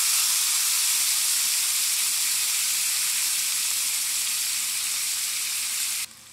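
Sliced bell peppers, onion and cilantro sizzling in hot oil in a frying pan, just added: a loud, steady hiss that eases slightly and then cuts off suddenly near the end.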